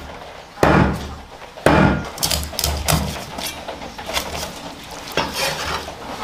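Cleaver slicing fish fillet on a wooden chopping board: two heavy knocks of the blade on the board about a second apart, then a run of lighter, quicker knocks and a few more spaced ones.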